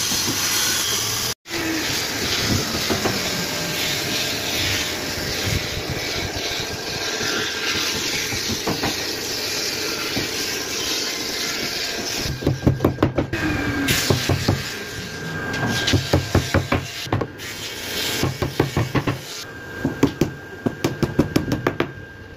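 Steady workshop hiss, then clear tape being pulled off its roll in short rasping rips as it is wrapped around the corners of a glued mitred wooden frame. Near the end a hammer taps the wooden frame in a quick run of light knocks.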